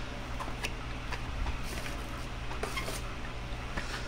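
Scattered light clicks and taps of plastic packaging being handled, over a steady low hum.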